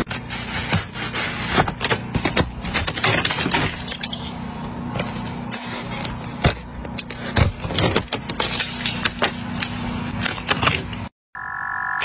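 Car wash heard from inside the car: water spray drumming on the glass and body, with many sharp clicks and rattles over a steady low hum. It cuts off suddenly about 11 s in, and a short steady tone follows.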